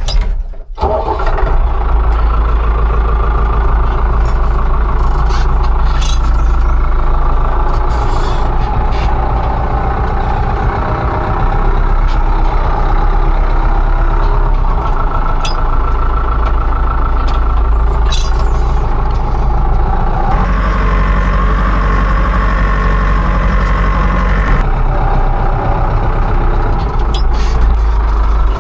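Farm machine engine running steadily at working speed, its note shifting about twenty seconds in and again about five seconds later.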